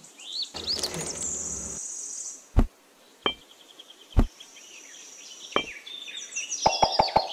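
Birds chirping in the background while miniature clay bricks are handled on sand: a brief rustle as they tumble out of a basket, then single sharp clicks as bricks are set down, and a quick run of taps near the end.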